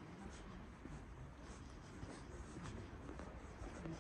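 Quiet outdoor background ambience with faint, distant voices and soft, irregular footsteps.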